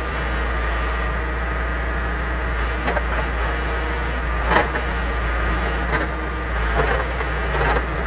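John Deere 410B backhoe's diesel engine running steadily under load while the backhoe arm works, with a few short sharp knocks from the bucket dragging through brush and roots, spaced about a second or more apart.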